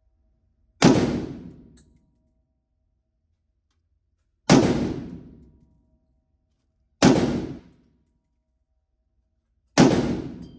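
Four rifle shots from an M&P 15 Sport II AR-15 with a 16-inch barrel firing 5.56 NATO, fired slowly a few seconds apart, each followed by an echo that dies away over about a second.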